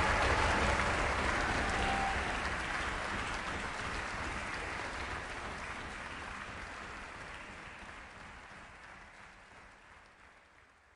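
Audience applauding, steadily fading out to near silence by the end.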